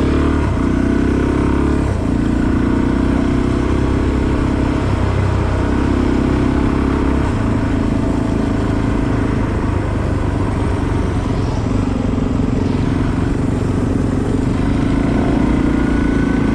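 Motorcycle engine running under way, its steady note dipping briefly and recovering a few times in the first half, over a low rumble and rushing noise.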